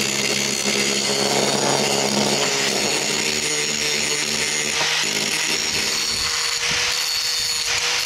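Electric angle grinder running steadily while grinding old steel brake shoes, a motor hum under a grinding hiss. About six seconds in the low hum fades and a single higher whine holds on.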